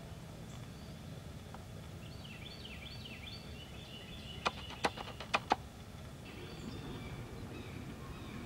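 Small birds chirping outdoors: runs of quick, falling chirps, with a handful of sharp clicks a little past halfway, over a low steady rumble of background noise.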